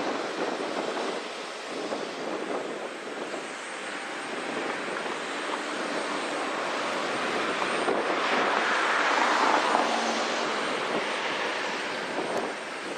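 Airliner engines passing by: a steady rushing noise that builds to its loudest about nine seconds in and then fades.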